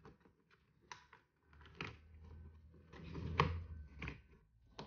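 Small plastic clicks and rustling from a wiring harness and its plug connector being handled and pushed into place at a door mirror's base, with one sharper click about three and a half seconds in.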